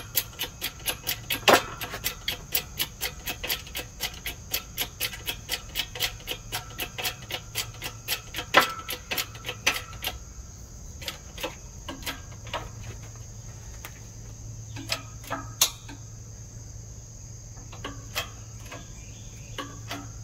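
Hydraulic bottle-jack pump of a 20-ton shop press being worked, clicking in a fast, even rhythm of about three clicks a second, then slower, irregular clicks after about ten seconds. The press is forcing a wheel bearing onto a truck rear axle shaft.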